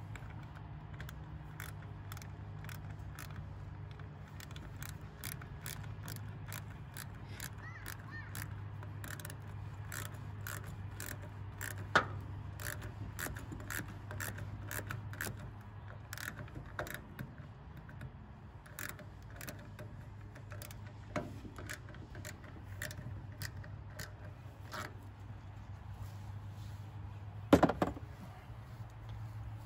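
Hose clamp on a Trac Vac leaf vacuum's corrugated intake hose being tightened with a screwdriver: an irregular run of small metallic clicks, about one or two a second. A sharper knock comes about twelve seconds in, and a louder clatter of knocks near the end.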